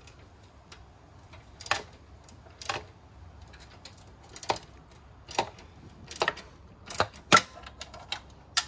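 Socket wrench clicking as it undoes the long bolt through a sway bar bushing, with the bolt end held by a second wrench: sharp clicks at uneven intervals, some in quick pairs, the loudest about three-quarters of the way through.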